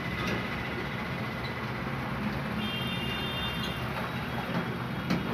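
Steady mechanical rumble, with a short high beep about two and a half seconds in and a sharp click near the end.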